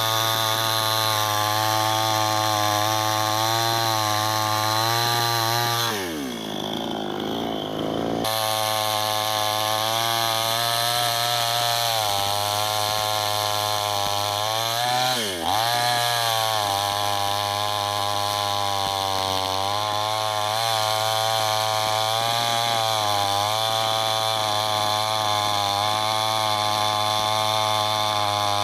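Chainsaw running at high speed while cutting wood, a steady high-revving whine. Its pitch drops sharply twice, about six and fifteen seconds in, then climbs back.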